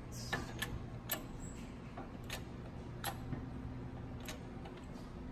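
Sharp metallic clicks and clinks from a hand-operated bearing press tool, about six of them spaced unevenly, over a low steady hum.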